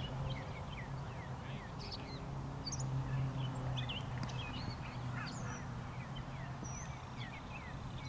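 Birds chirping in the surrounding trees, many short high calls sliding up and down in pitch, over a steady low hum.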